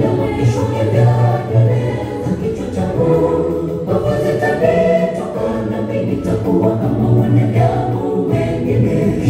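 Gospel choir of men's and women's voices singing together, amplified through loudspeakers.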